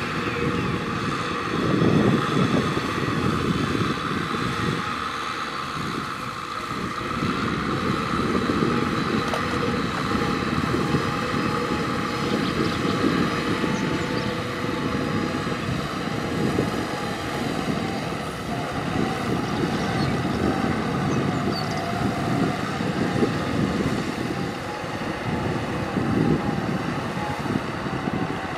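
Kubota M6040SU tractor's diesel engine running steadily as it drags a rotary cultivator through wet paddy mud.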